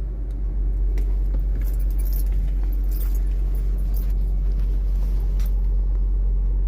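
2007 Honda Accord's 3.0-litre V6 idling steadily after a knock sensor and wiring harness replacement, running with no fault codes. Scattered light metallic clicks and jingles come over the engine about one to three seconds in.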